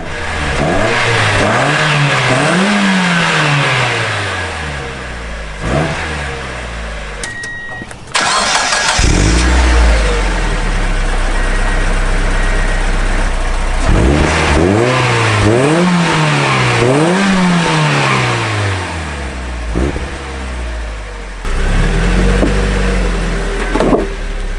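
Mazda NB Miata engine revving through a new Cobalt stainless axle-back muffler: two quick rises and falls in pitch near the start, two more in the middle and a smaller one near the end, with steady low running between. The owner finds it still pretty quiet.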